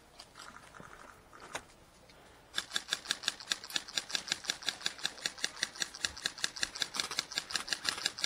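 Airsoft rifle firing a long run of rapid, even shots, about seven a second, that starts about two and a half seconds in.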